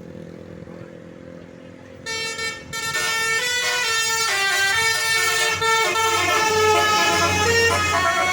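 Basuri telolet bus horn, a multi-tone air horn, playing a tune of changing notes, loud from about two seconds in.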